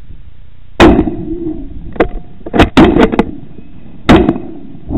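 About seven loud, sharp knocks at uneven intervals, four of them in quick succession around the middle. These are handling bumps on a rifle and its scope-mounted night-vision camera as the rifle is shifted.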